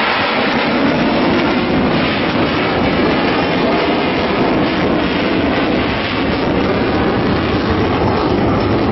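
Loud, steady jet-engine noise from a single-engine F-16 fighter flying a low, slow pass.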